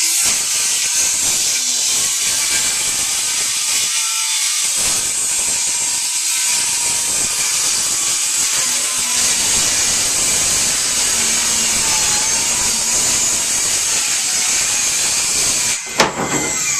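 Handheld circular saw cutting a long board, with the steady high whine and hiss of the blade through the wood. Near the end the trigger is released with a knock and the motor winds down, its pitch falling.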